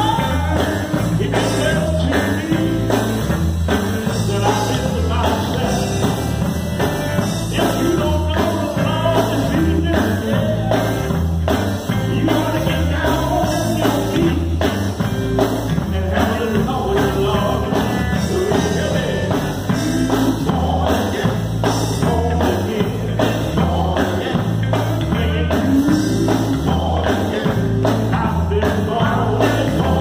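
Live gospel group singing with a lead vocalist over amplified electric guitar and drum kit, a steady driving beat with a repeating bass line underneath.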